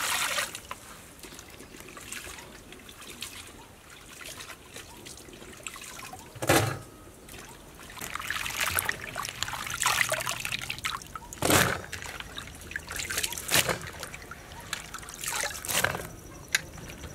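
Cut bamboo shoots being washed by hand in a basin of water: water pouring in at the start, then sloshing and splashing as hands stir the pieces, with a few loud thuds along the way.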